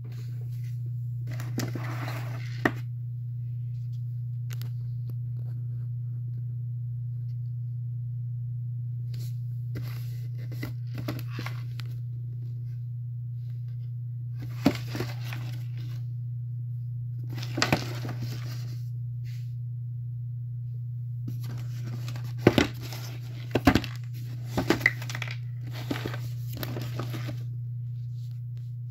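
Cardboard toy box with a clear plastic window being handled and turned over in the hands: intermittent rustling and crinkling with a few sharp taps. A steady low hum runs underneath.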